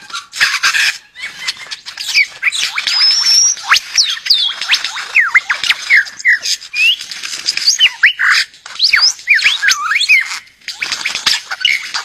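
Male superb lyrebird's courtship display song: a fast, unbroken stream of whistled glides, chirps and harsh rasping notes.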